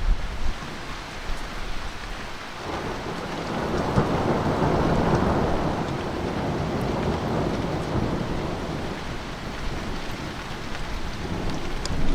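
Long rumble of thunder over steady rain: it builds about a quarter of the way in, swells to a peak, then slowly dies away while the rain keeps hissing.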